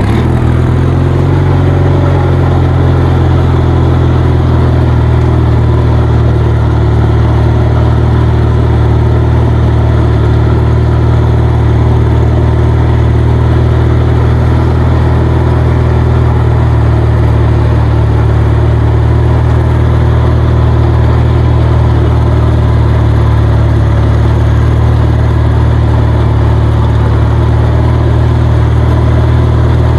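Kohler 20 HP Magnum twin-cylinder engine of a riding lawnmower running steadily at a constant speed, loud and close.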